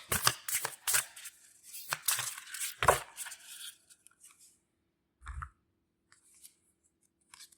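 A deck of tarot cards being shuffled by hand: quick, dense flicking and riffling for about four seconds, then a single soft thump about five seconds in and a few faint ticks as the cards settle.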